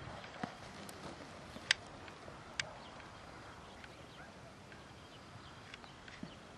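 Quiet outdoor background with a few brief, sharp clicks in the first couple of seconds, the loudest about one and a half seconds in.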